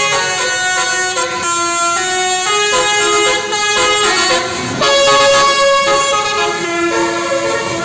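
Basuri telolet horn on an Indonesian coach, a multi-tone horn playing a tune: a run of held notes, several sounding together, changing pitch about every half second.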